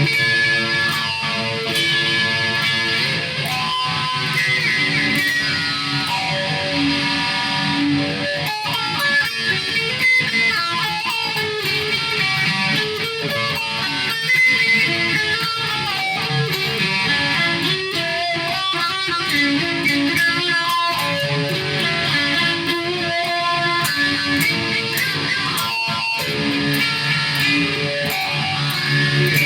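Guitar playing continuously: a run of plucked and strummed notes and chords with no pauses.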